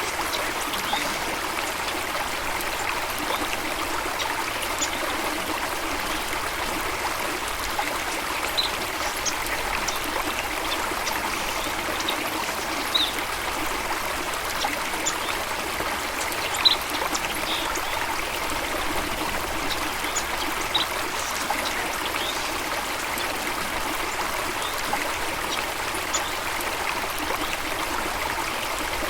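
A stream running and trickling over rocks, a steady even rush of water, with scattered brief high-pitched sounds over it.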